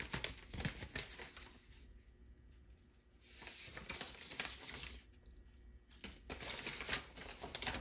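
Brown kraft packing paper rustling and crinkling as it is handled, in three short bouts with brief pauses between them, with a few small handling clicks.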